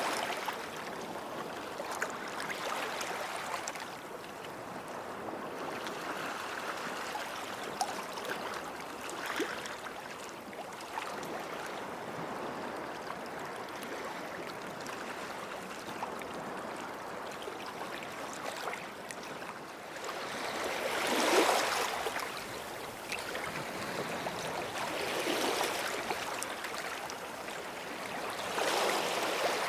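Small sea waves washing in and out at the water's edge of a beach, a steady wash with three louder surges a few seconds apart near the end.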